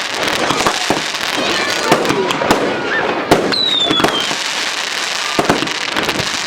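Fireworks going off: dense crackling with many sharp cracks and bangs, and a whistling firework falling in pitch about three and a half seconds in.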